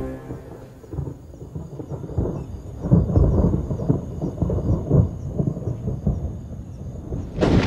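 Thunder from a storm: low rolling rumbles that swell and fade, then a sudden loud crack of thunder near the end.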